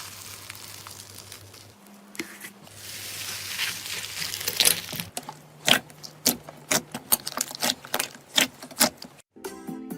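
Slime being squeezed and worked by hand. It gives a fizzy crackle for about the first half, then a quick, irregular run of sharp clicks and pops. Music starts just before the end.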